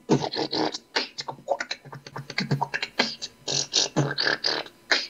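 Beatboxing into a webcam microphone: a fast, uneven run of mouth-made kick thumps and hissing hi-hat and snare sounds.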